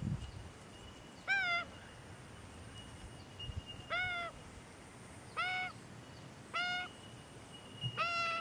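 Juvenile Australian magpie begging for food from its parents, giving five short squawking calls spaced about one to two and a half seconds apart.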